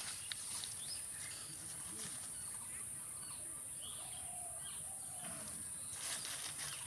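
Faint rural field ambience: a steady high insect drone with scattered faint bird chirps and calls, and a brief rustle about six seconds in.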